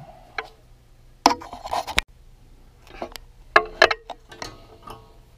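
Handling noise as sheets of grip tape are shifted and tools are picked up from a tabletop, with a few sharp knocks and clatters. The loudest come about a second and a quarter in, again near two seconds, and as a quick cluster at about three and a half seconds.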